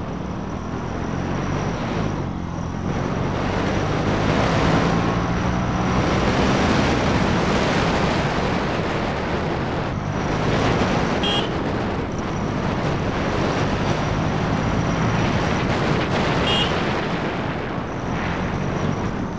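KTM Duke motorcycle engine running while riding, its pitch rising and falling with the throttle, under a steady rush of wind noise on the rider's microphone.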